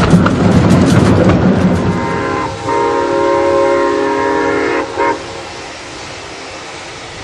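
Narrow-gauge steam locomotive running with rail clatter and knocking, then its steam whistle blows one long multi-tone blast, clipped short at the start and with a short final toot near the end. Afterwards the train sound drops to a steady, quieter rush.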